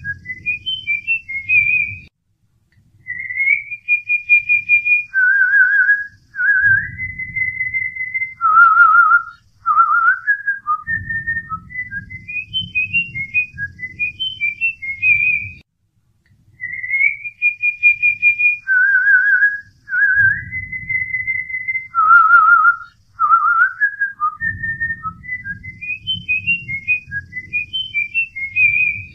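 A whistled tune of quick note runs, long held notes and warbling trills, repeating the same phrase about every 14 seconds over a low accompaniment: a looped whistling recording.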